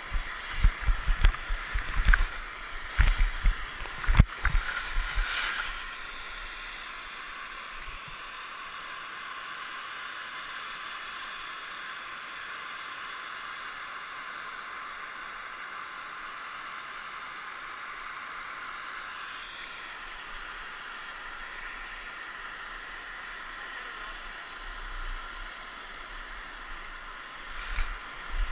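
Skis sliding down a snow run, heard through a GoPro helmet camera's housing: a steady hiss of skis over the snow. Irregular thumps and rumbles fill the first few seconds and come back near the end.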